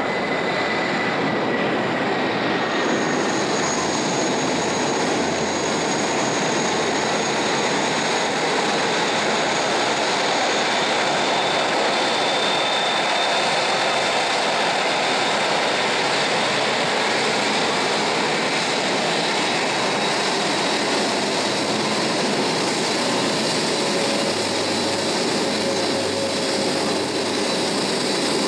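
Airbus A380's jet engines running at taxi power: a steady rushing noise with thin, faint whines that come and go.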